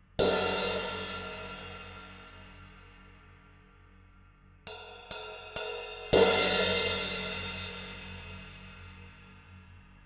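Handmade B20 bronze cymbal struck once and left to ring out and fade over several seconds. It is then hit four more times in quick succession, the last hit the loudest, and rings down again.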